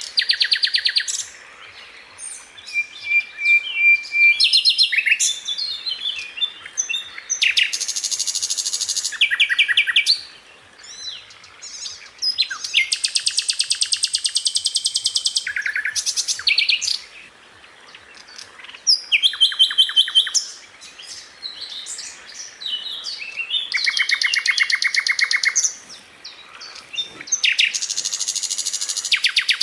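Sikatan londo flycatcher singing a string of fast rolling trills and repeated sharp notes, high-pitched, in phrases of one to three seconds with short pauses between.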